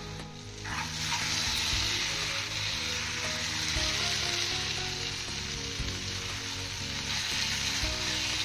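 Mushroom masala sizzling as it fries in a non-stick kadhai, the mushrooms' released water cooking off, with a spoon stirring through it. The sizzle swells up about a second in and holds steady. Soft background music plays underneath.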